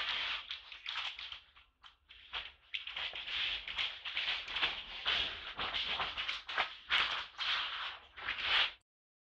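Dry fallen leaves rustling and crackling in quick, irregular bursts as macaques scramble and drag an infant through the leaf litter. The sound cuts off suddenly near the end.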